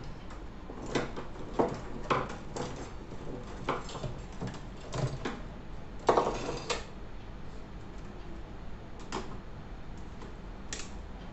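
Handling noises on a wooden workbench: a series of scattered clicks, knocks and scrapes as tools are shifted and a digital multimeter and its test leads are set down, with a longer scrape about six seconds in.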